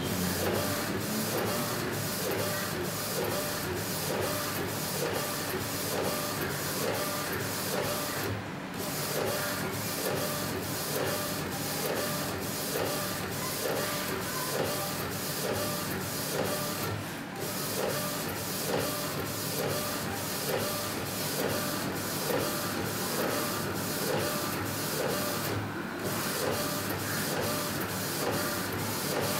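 Epson-based A4 flatbed inkjet printer printing onto a T-shirt: its print head carriage shuttles back and forth in a steady repeating mechanical run, about two passes a second. The run pauses briefly three times, roughly every eight and a half seconds.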